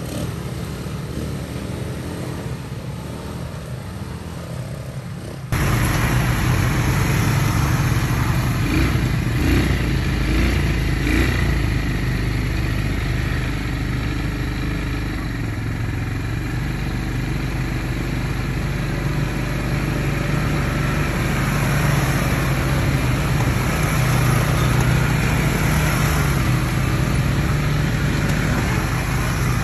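ATV engine running steadily while being ridden, with rumble and noise around it. About five seconds in the sound jumps abruptly louder and then holds steady.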